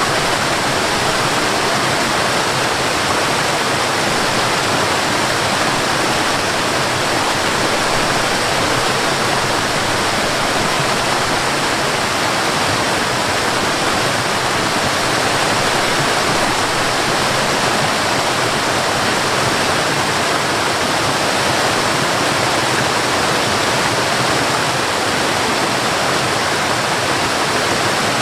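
Cascading waterfall: water rushing steadily over rocks, an even, unbroken sound of falling water.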